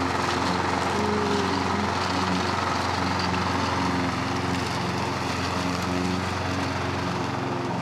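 Gardencare petrol rotary lawn mower's small engine running steadily as it is pushed across the grass, cutting.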